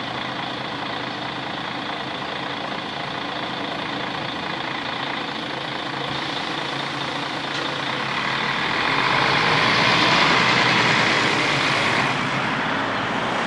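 Steady rushing outdoor noise, swelling louder for a few seconds past the middle.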